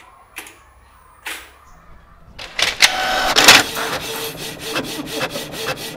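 A couple of short clicks, then an office printer starts up and runs loudly, a fast rattle with a steady whir under it from about two and a half seconds in.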